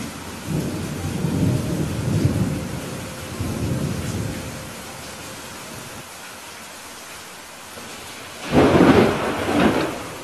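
Steady heavy rain with thunder: a low rolling rumble in the first half, then a louder, sharper thunderclap about eight and a half seconds in that peaks twice before fading.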